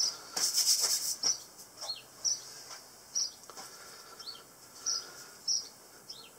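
Small birds chirping: short high chirps every half second or so, some dropping in pitch. A brief rustle sounds in the first second.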